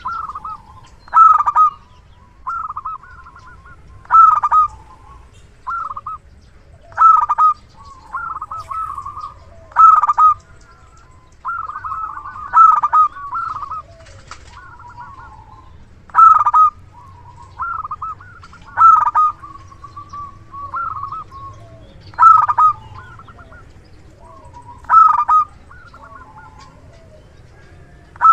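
Zebra dove (perkutut) cooing over and over in a strong, full voice, as in a lure recording. Loud phrases come roughly every three seconds, with quieter phrases in between.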